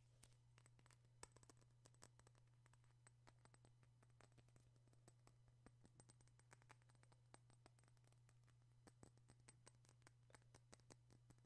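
Near silence with a steady low hum and many faint, irregular light clicks and ticks, several each second.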